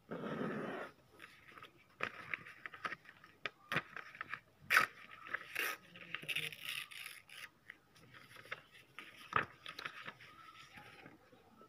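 A sheet of squared notebook paper being folded and creased by hand on a hard board: irregular rustling and crinkling, with a louder rustle in the first second and a few sharp clicks, the loudest about five seconds in.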